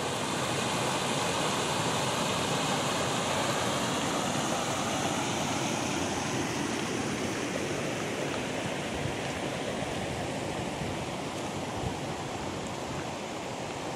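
Shallow stream rushing over flat rock and small rapids, a steady rush of water that eases a little in the second half.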